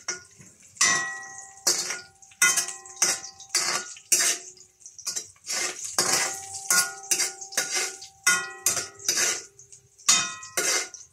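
Metal spatula clanking and scraping against a stainless steel wok while sliced onion is stirred in it. The strikes come irregularly, about two or three a second, and many leave a brief ringing tone from the wok.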